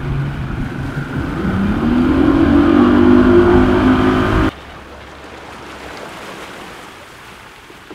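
Bass boat's outboard motor running under way, its pitch climbing as the boat accelerates, with a rush of wind and water. It cuts off suddenly about four and a half seconds in, leaving a quieter steady rushing noise.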